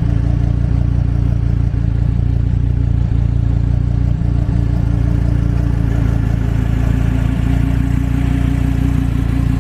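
2014 Dodge Viper GTS's 8.4-litre V10 idling steadily.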